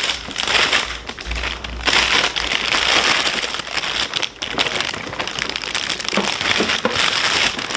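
Clear plastic bag crinkling and rustling as it is handled, with small toy pieces shifting inside; a dense crackle that grows louder about two seconds in.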